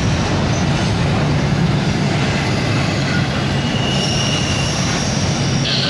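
Double-stack intermodal freight cars rolling past: a steady, loud rumble of steel wheels on the rails, with thin high-pitched wheel squeal tones joining about four seconds in.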